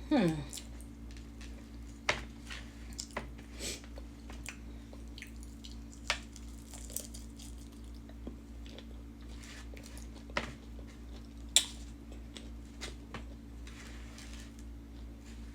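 A person eating: quiet chewing and biting with scattered small clicks and knocks, the sharpest about two-thirds of the way through, over a steady low hum.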